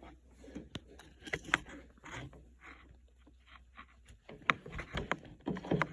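Handling noise of an electric plug being fumbled into a wall outlet: scattered plastic clicks, taps and cord rustling, busier near the end.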